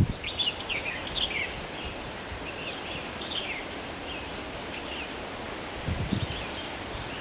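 Typhoon wind rustling steadily through tree leaves, with small birds chirping several times in the first half. A gust rumbles low on the microphone about six seconds in.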